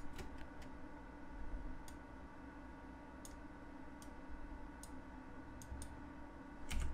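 Scattered, irregular clicks of a computer mouse and keyboard, with a quick run of clicks near the end, over a faint steady hum.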